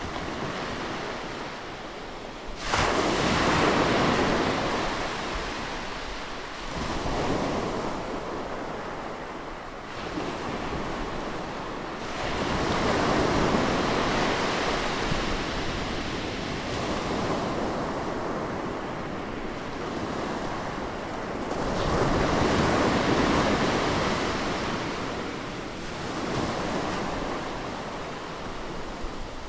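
Sea waves breaking on the shore, surging in and washing back every few seconds. The loudest wave crashes in suddenly about three seconds in.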